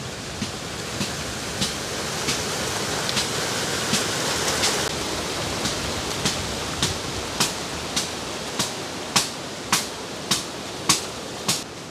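Sharp strikes or clicks repeating about every 0.6 s, growing louder near the end, over a steady rushing hiss.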